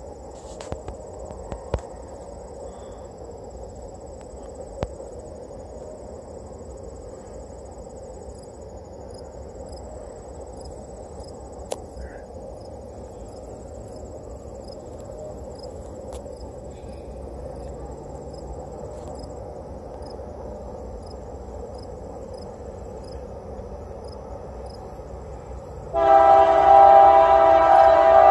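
Faint insects and a steady background hum, then near the end a Canadian Pacific diesel locomotive's horn sounds suddenly and loudly, a chord of several notes held to the end.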